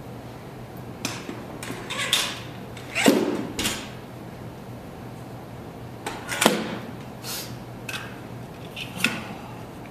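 Loaded barbell with bumper plates clanking and knocking during snatch reps: a string of sharp metal knocks and rattles, with two heavier thuds about three and six and a half seconds in. A steady low hum runs underneath.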